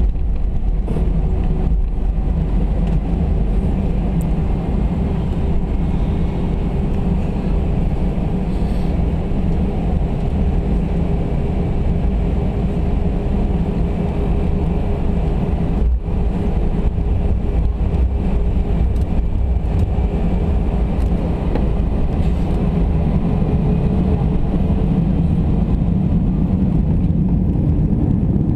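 Airbus A319 cabin noise: the steady, loud low rumble of the jet engines and airflow, with a faint steady hum running through it.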